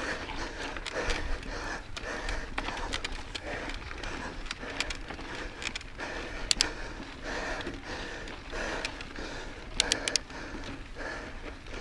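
Mountain biker breathing hard, about one breath a second, while riding. A few sharp clicks from the bike a little past halfway and a quick cluster near the end.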